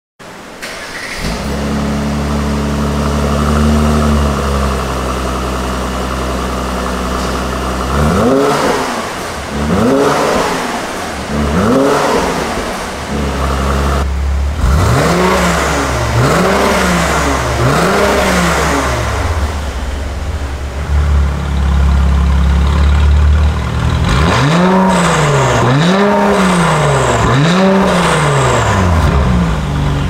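Mercedes-AMG C43's twin-turbo V6 through an Fi Exhaust downpipe and valvetronic cat-back exhaust. It starts up and idles high, settling lower after a few seconds. It is then blipped in three sets of three quick revs, each rising and falling, with the exhaust valves closed for the middle set and open for the last.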